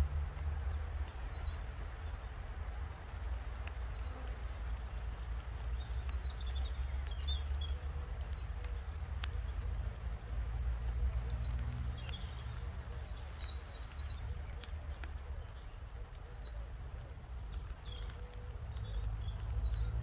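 Small birds chirping again and again over a steady low rumble. A few sharp clicks and knocks come as wooden hive boxes and frames are handled, the clearest about nine seconds in.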